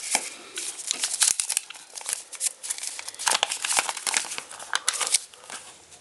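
A folded paper toy instruction leaflet being unfolded and handled, its paper crinkling and crackling in quick, irregular rustles that die down near the end.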